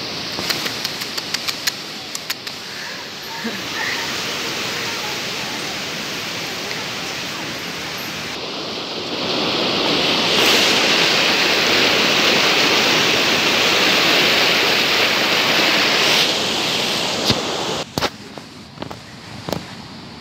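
Rushing whitewater of a rocky mountain stream, a steady hiss that swells loud for several seconds in the middle. Before and after, a fainter steady noise with scattered clicks and knocks.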